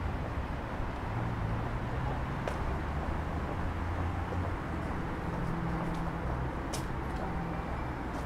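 City traffic: a steady low rumble of car engines, with a few faint short clicks.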